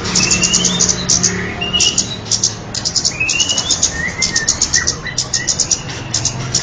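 Recorded call of the kemade bird played as a lure: runs of fast, dry chattering clicks alternating with short rising whistled notes, over a steady low hum.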